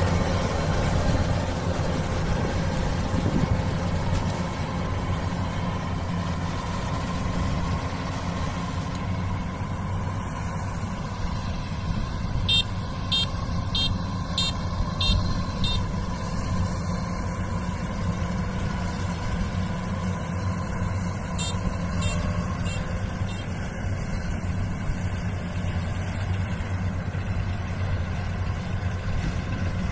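Kubota rice combine harvester's diesel engine running steadily as it cuts and threshes rice, a low even drone that eases a little as the machine draws away. A quick run of short high ticks comes about halfway through, and a few more a little later.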